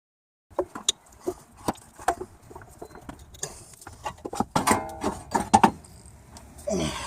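Wrench and socket clinking and knocking against the steel strut-mount studs and nuts as the last upper strut mount nut is taken off. There is a quick rattling run of clicks about halfway through, and a short falling squeak near the end.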